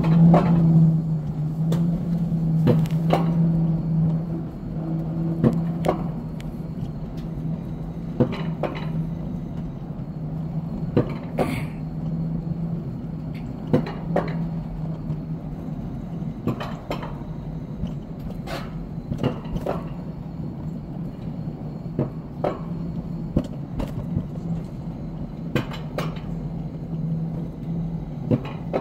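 Alpine coaster sled hauled up the lift section of its metal track: a steady low mechanical hum, louder for the first few seconds, with irregular clicks and clunks from the sled and track.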